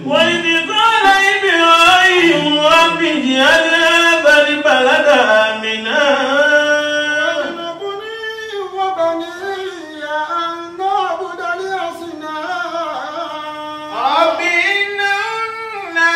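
Qur'anic verses recited in a melodic chant by a single voice, with long held notes and sliding ornaments on them.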